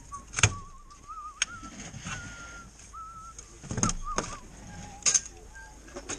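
Someone whistling a wavering tune while metal fishing tackle knocks and clanks as a seat box and its leg frame are handled out of a car boot. The loudest knock comes about half a second in, with more clanks around four and five seconds in.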